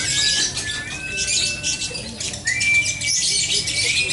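Lovebirds chattering in a rapid, unbroken high-pitched stream, with several long drawn-out whistles that slide up and down in pitch over it.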